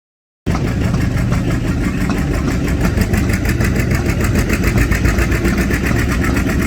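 1911 Avery 18 hp steam traction engine running on the belt to a sawmill: a rapid, even beat of exhaust chuffs over a steady mechanical rumble. It starts abruptly about half a second in.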